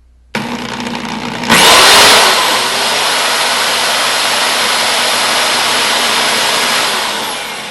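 Electric drill drilling a hole into a plastic kitchen timer. It starts suddenly, runs briefly at a lower speed, then jumps to full speed with a whine about a second and a half in. It runs steadily and then winds down as the trigger is released near the end.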